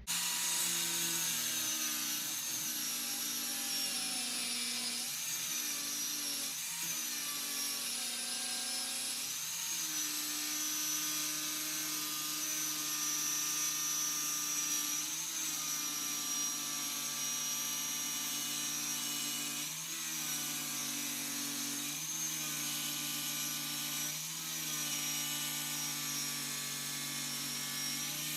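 Electric power saw cutting through a Corian solid-surface countertop. The motor runs steadily and its pitch sags briefly every few seconds as the blade is pushed into the cut.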